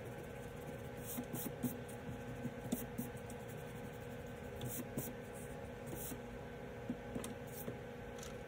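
Eraser rubbing on paper in short scrubbing strokes, coming in little groups, as pencil lines are erased, with hands brushing over the sheet.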